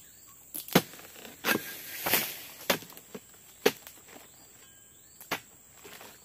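Oil palm harvesting chisel (dodos) on a long pole striking the stalks and frond bases of a palm's fruit bunches: about six sharp chopping hits, irregularly spaced roughly a second apart.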